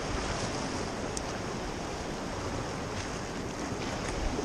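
Ocean surf washing and breaking over the rocks at the water's edge, a steady rush of waves, with some wind on the microphone.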